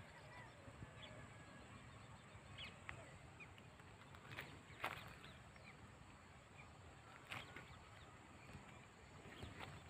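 Quiet rural field ambience: faint scattered bird chirps over a low steady background, with a few short, soft rustling noises around the middle.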